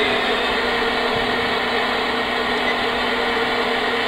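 Homedics SoundSpa Rejuvenate sound machine playing its white noise setting: a steady, even hiss with a faint steady hum beneath it.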